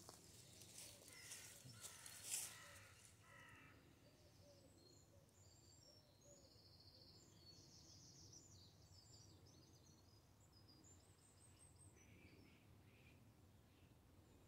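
Near silence: faint outdoor ambience, with a few soft rustles and crunches of dry leaf litter being stepped on in the first few seconds.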